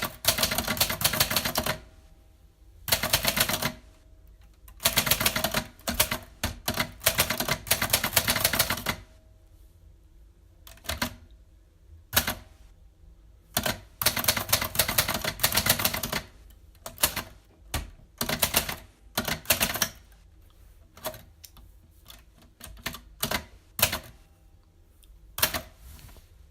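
Typewriter keys being struck: fast runs of clattering keystrokes lasting a few seconds each, broken by pauses, single strikes and short clusters.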